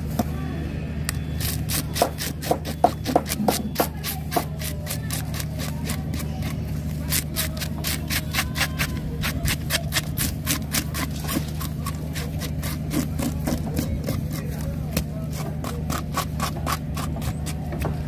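Golok blade scraping scales off a fresh red-skinned fish on a wooden chopping block, in quick repeated strokes several a second, with a few harder knocks about two to three seconds in. A steady low hum runs underneath.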